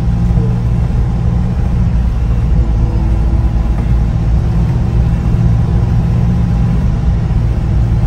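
Steady low rumble of a passenger van's engine and its tyres on a wet road, heard from inside the cabin in slow stop-and-go traffic.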